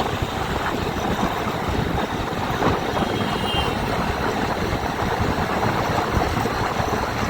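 Motorcycle running at road speed: a steady engine rumble mixed with road and wind noise.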